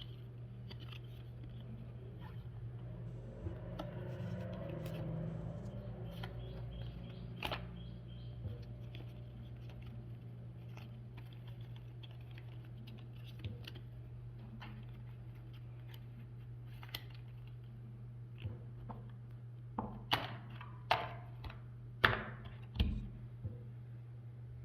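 Light taps and clicks of a new phone and its packaging being handled during unboxing, with a soft rustle a few seconds in and a run of sharper, louder clicks near the end, over a steady low hum.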